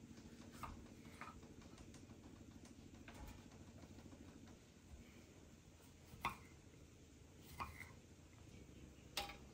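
Near-silent room with a few short sharp taps from a kitchen knife cutting tomatoes on a wooden cutting board and pieces being set on a metal baking tray. The three clearest taps come in the second half, a second and a half or so apart.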